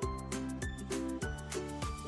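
Upbeat background music for children, with a steady beat and held bass notes.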